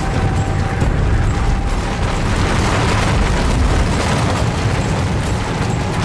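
Loud, steady, deep rumble of a collapsing suspension bridge, as sound effects for the Tacoma Narrows Bridge collapse, with faint music underneath.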